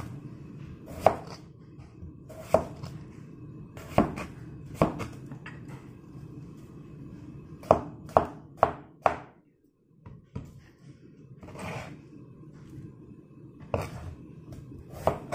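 A broad-bladed kitchen knife chopping through a melon and striking the cutting board. About ten sharp knocks come at uneven intervals, with a quick run of four around the middle.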